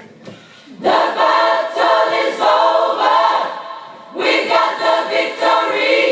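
Gospel choir singing, in two loud phrases with a short break about four seconds in.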